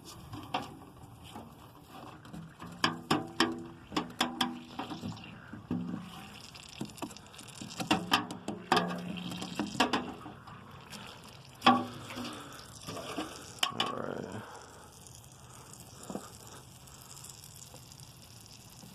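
Irregular clicks, scrapes and short squeaks of hand tools working at a nail puncture in a car tire's tread, in clusters with pauses between.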